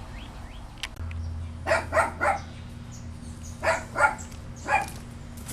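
A dog barking in two runs of three short barks, the second run a little slower.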